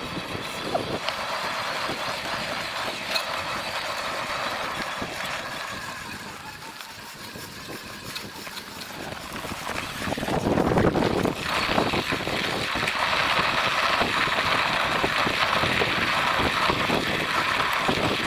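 Cyrusher Ranger electric fat-tyre bike riding along a rough dirt and grass track: steady tyre and rattle noise, growing louder with a low rumble about ten seconds in.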